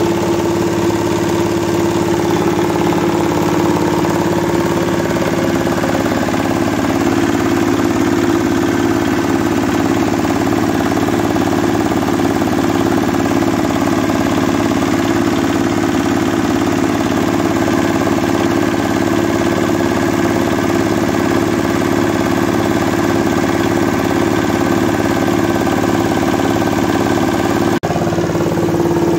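Old 8 hp single-cylinder diesel engine running steadily, driving a rice mill by a flat belt, with the mill running along with it.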